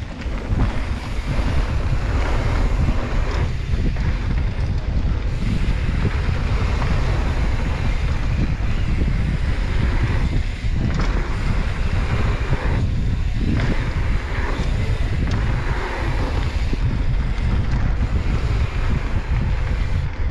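Wind buffeting the microphone while riding a mountain bike fast down a flow trail: a steady, loud rush with a deep rumble, dipping briefly a few times.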